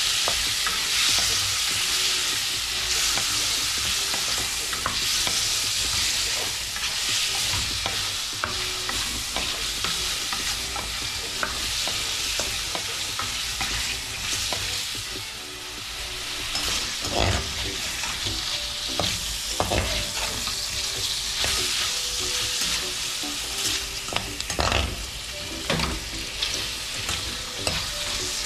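Shrimp sizzling as they fry in a little oil in a metal pot, with the scrape and stir of a spoon through them. From a little past halfway, sharper knocks of the spoon against the pot come more often.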